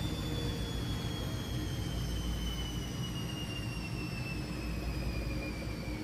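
Bauknecht top-loading washing machine standing on a rubber anti-vibration mat, its drum spinning down: a steady rumble with a motor whine that falls slowly in pitch as the drum slows at the end of a spin.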